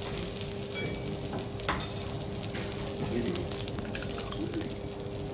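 Food sizzling quietly on a teppanyaki griddle, with a few light clicks of metal utensils and a steady hum underneath.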